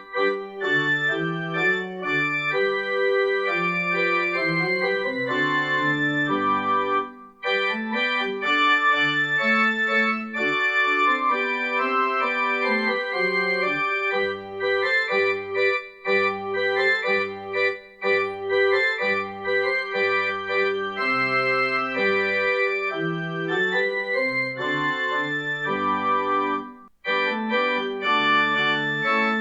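Organ playing sustained chords over a moving bass line, pausing briefly twice between phrases.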